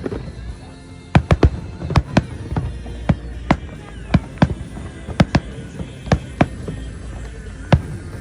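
Fireworks exploding overhead: a rapid, irregular run of about fifteen sharp bangs that starts about a second in, over a steady low rumble.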